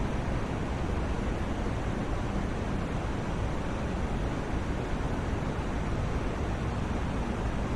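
Steady white noise sleep sound: an even, unchanging hiss with most of its weight in the low end.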